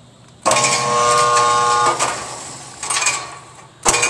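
Indoor range's motorized target carrier running on its track, a steady electric-motor whine that starts about half a second in and fades after a couple of seconds. A sharp click follows, then a loud sharp knock just before the end.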